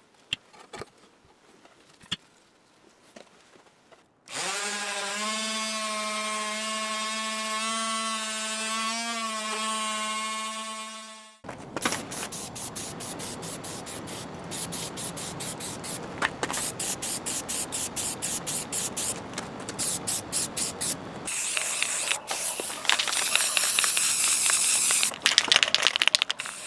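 A few faint ticks, then a steady pitched hum for about seven seconds that cuts off abruptly. After it, an aerosol spray can hisses in many short bursts and then in longer sprays as primer and a gold base coat go onto metal faceplates.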